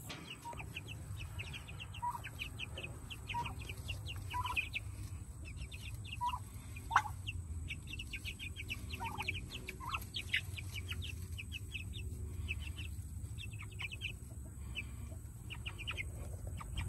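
Young meat chickens peeping: a steady run of short high chirps with a few lower clucks mixed in, over a steady low rumble.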